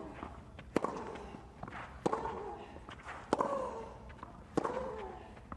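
Tennis rally: a ball struck back and forth with rackets, four sharp hits about 1.3 seconds apart, the last three each followed by a player's short grunt.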